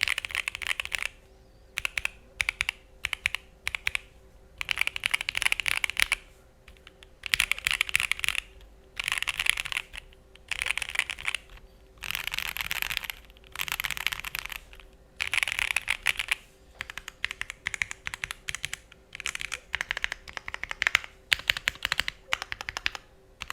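Typing on a TOFU65 2.0 mechanical keyboard with lubed and filmed Thic Thock Marshmallow linear switches, a PP plate, full Poron foam and GMK Minimal R2 keycaps. The sound is soft and creamy rather than sharp. The keystrokes come in fast bursts broken by short pauses.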